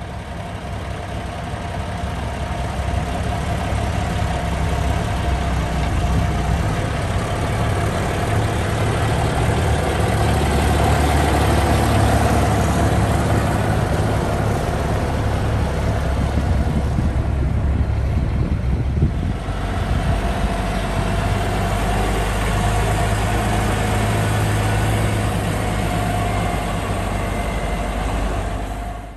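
Cummins KT450 inline-six diesel of a 1981 International Transtar 4300 Eagle truck idling steadily. It grows louder over the first few seconds and cuts off suddenly at the end.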